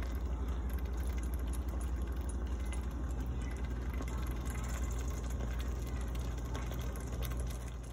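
A steady low hum with faint crackles while a pot of baked beans with ground beef and andouille sausage cooks on the stove.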